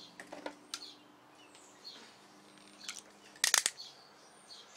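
A quick run of sharp clicks about three and a half seconds in, as the ratcheting slider of a utility knife is pushed to extend its blade, over a faint low steady hum.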